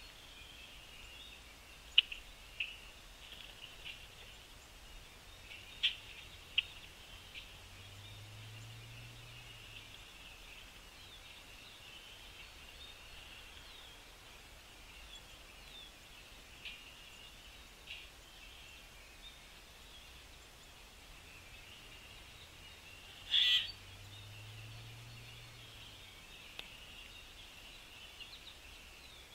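Small birds chirping: a steady background of bird chatter with sharp single chirps now and then, and a louder short burst of chirps about 23 seconds in.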